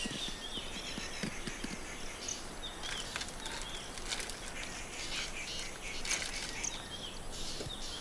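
Birds chirping in short, repeated calls over a steady outdoor hiss, with a few soft clicks.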